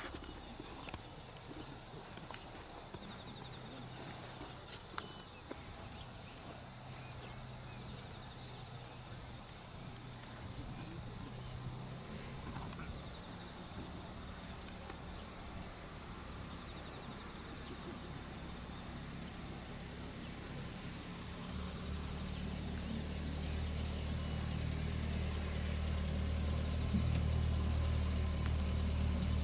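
A car engine running, with a low rumble that grows steadily louder over the last several seconds, over a steady high-pitched insect drone.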